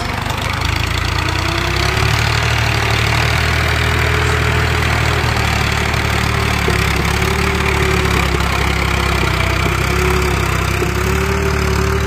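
Orange farm tractor's diesel engine running steadily as it pulls a cultivator through a field, a low, even drone that grows a little louder over the first couple of seconds.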